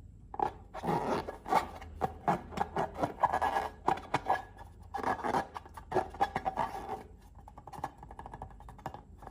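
Close-up handling of slime: dense runs of wet clicks and crackles, thinning out near the end.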